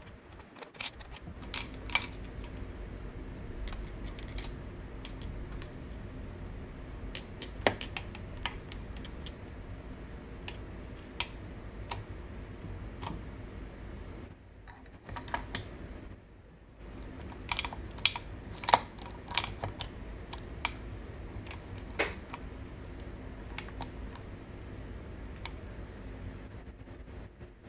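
Scattered sharp metal clicks and taps as transmission gears, shafts and shift parts are fitted by hand into the aluminium crankcase of a Honda CR85R two-stroke engine. The clicks come in clusters, busiest in the second half, over a steady low hum.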